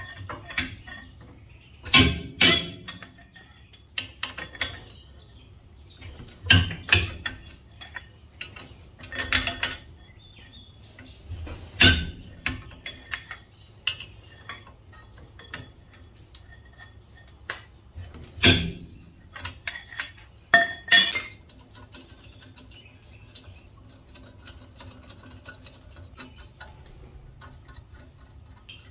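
Metal clinks and clanks from a 19 mm socket on an extension and a steel pipe cheater bar working the nuts off a wheel spacer. About seven sharp knocks come at uneven gaps over the first twenty seconds or so, then only faint light ticks as the loosened nuts are turned off by hand.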